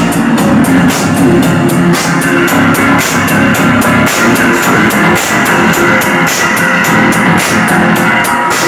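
Loud live band music with guitar and drums, a fast steady beat running throughout.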